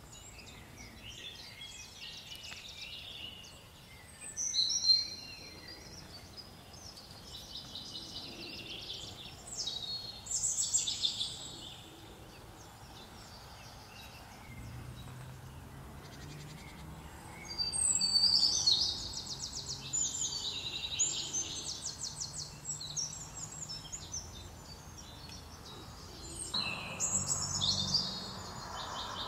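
Songbird singing in bursts: about six short, high-pitched phrases, several ending in fast trills, with the longest run of song about two-thirds of the way in.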